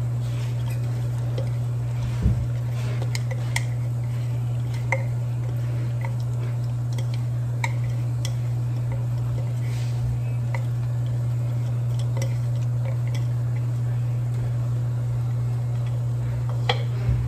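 A steady low hum, with a few faint, light clicks scattered through it, such as shells or a utensil touching a stainless steel pot.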